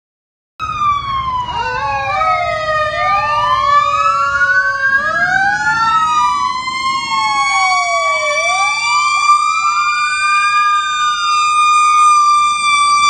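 Several emergency vehicle sirens sounding at once, starting abruptly about half a second in, their pitches sweeping up and down and crossing each other over a low truck-engine rumble. In the last few seconds one settles into a steady high tone held at the top of its wind-up: a fire engine's Federal Q mechanical siren running peaked.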